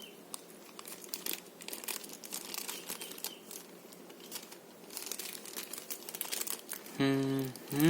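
Plastic packaging crinkling and rustling in irregular crackles as it is handled and unwrapped. Near the end a man gives a short low hum.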